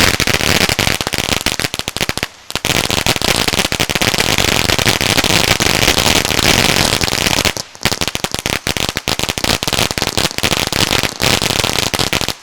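Cutting Edge 'Proud Heritage' firework fountain burning with a dense, rapid crackling, broken by two brief pauses, then stopping suddenly at the end as the fountain burns out.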